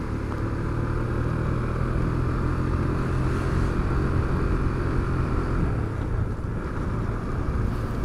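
KTM Duke 250's single-cylinder engine running steadily as the loaded bike is ridden uphill, over a steady rush of wind and road noise.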